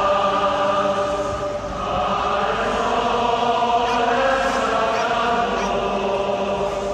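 A huge street crowd chanting together in long held notes, with a brief dip about a second and a half in before the chant picks up again.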